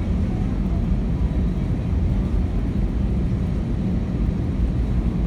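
Steady, deep cabin rumble of an Airbus A319 on the ground after landing: engine and air-conditioning noise heard from inside the passenger cabin, even throughout with no distinct tones or knocks.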